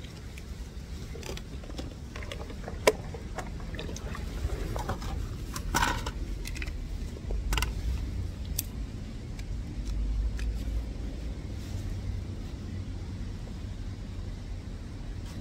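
Outdoor ambience at the waterside: a steady low wind rumble on the microphone, with a sharp click about three seconds in and a few short, sharp noises between six and nine seconds.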